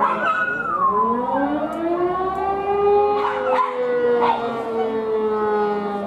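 E57 motor siren winding up for a fire brigade alarm, its tone rising steadily for a few seconds and then holding. A dog howls along with it.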